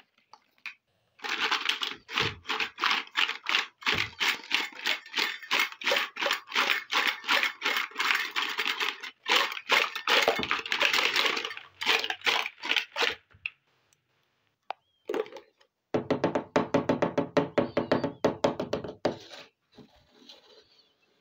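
Small hard-plastic toy kitchen pieces clattering and knocking against each other and a plastic basin as they are shaken and rummaged by hand: a dense run of quick clicks and knocks for about twelve seconds, then after a short pause a second burst of rattling.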